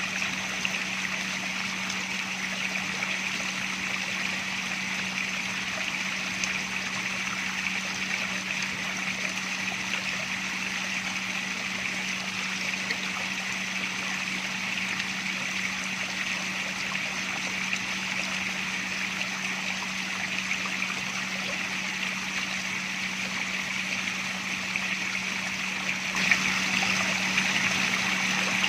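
Running water trickling and splashing steadily, with a steady low hum underneath. It gets louder about 26 seconds in.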